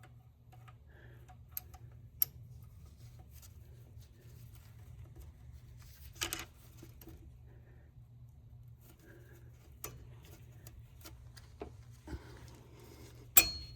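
Scattered light metallic clicks and taps as a C-clip is worked onto the axle end inside a GM 10-bolt differential housing, over a steady low hum. The sharpest click comes near the end.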